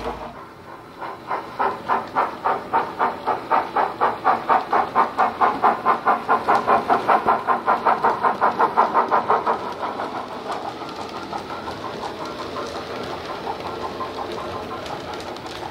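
Model BR 9F steam locomotive's DCC sound decoder playing steam exhaust chuffs through its speaker, an even beat of about three chuffs a second. After about ten seconds it drops to a softer, steadier running sound.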